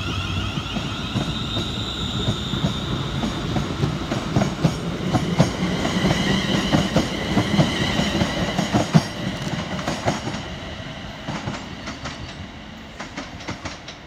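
ScotRail Class 380 Siemens Desiro electric multiple unit accelerating away past the platform, its traction equipment giving a rising electric whine over the rumble and clickety-clack of wheels on rail joints. The sound fades after the middle as the last coach passes, leaving a few spaced wheel clicks near the end.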